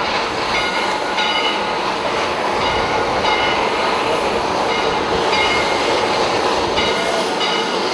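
Narrow-gauge Shay geared steam locomotive moving slowly, with a steady hiss of steam and running noise. Short, high, thin tones recur roughly every second.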